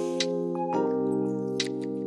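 Background music: held chords that change once about three quarters of a second in, with a couple of light ticks on top.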